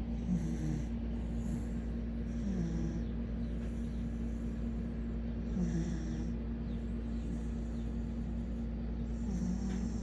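Sleeping dog snoring, four snores about three seconds apart, each a short low rasp with a breathy hiss, over a steady low hum.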